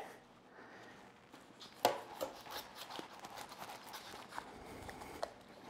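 Faint handling sounds of a knife and hands working a rack of raw pork spare ribs on a cutting board: scattered soft clicks and ticks, with one sharper tap about two seconds in.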